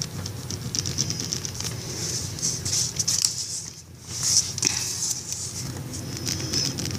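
Mechanical pencil lead scratching on paper in quick back-and-forth shading strokes, pausing briefly a little past halfway, over a steady low hum.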